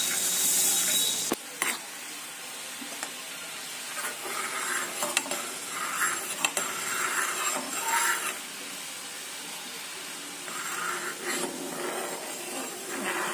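Sugar syrup boiling in a kadai, stirred with a metal ladle: a loud hiss cuts off about a second in, then comes bubbling with bursts of the ladle scraping and clinking against the pan. The syrup is being cooked down toward a sticky, one-string consistency.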